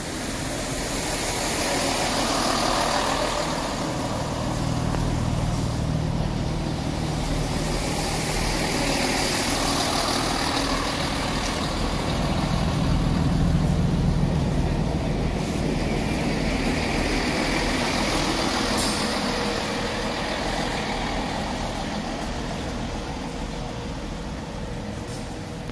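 Chiltern Railways Class 165 diesel multiple unit pulling into the platform and standing with its underfloor diesel engines running. A steady low hum grows louder about halfway through, then eases off.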